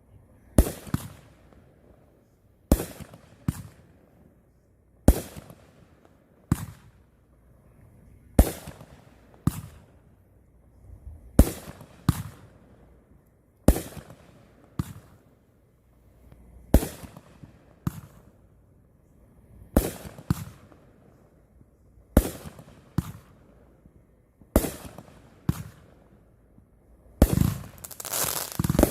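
Fireworks going off: a string of sharp bangs, singly or in pairs about every second or two, each trailing off in an echoing rumble, building into dense crackling near the end.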